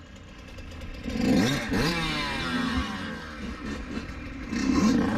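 Dirt bike engine revving up about a second in, its pitch falling away after, then rising again near the end.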